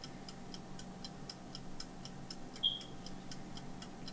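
A clock ticking quickly and evenly over a low steady hum, counting down the time a man has been given to think. A brief high chirp sounds about two-thirds of the way in.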